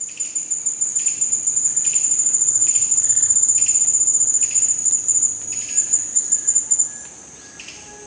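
Night-time forest insects: one high, steady, fast-pulsing trill that stops about seven seconds in, over softer chirps from another insect repeating about once a second.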